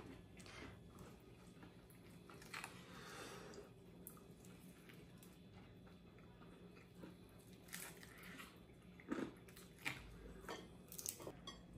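A person biting into and chewing crispy fried chicken, with faint scattered crunches.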